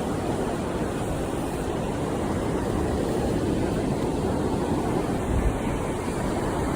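Steady rushing of wind and surf on a beach, a low, even roar with no distinct events.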